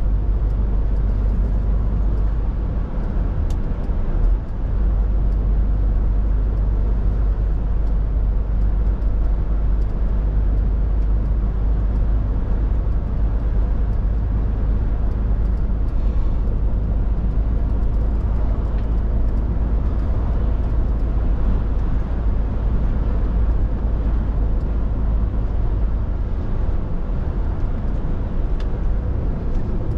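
Scania R450 articulated lorry under way, its 13-litre straight-six diesel giving a steady low drone under continuous road noise.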